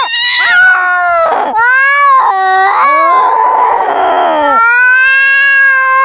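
A cat yowling: long, drawn-out calls that slide up and down in pitch, one after another with short breaks, and a harsher, raspy stretch about halfway through. It is the threatening caterwaul cats make in a territorial standoff.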